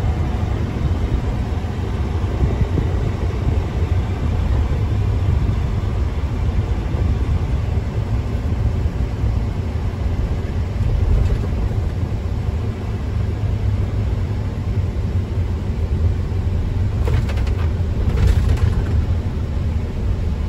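Mack Titan semi truck's diesel engine and road noise, a steady low rumble while driving at low speed, with two brief higher noises about three-quarters of the way through.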